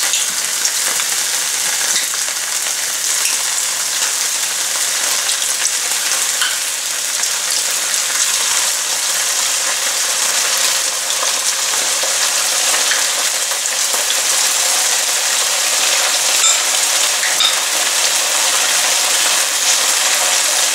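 Chopped onions and ginger-garlic paste frying in oil in a pan: a steady sizzle with scattered small crackles. Toward the end, chicken pieces are also frying in a second pan of hot oil.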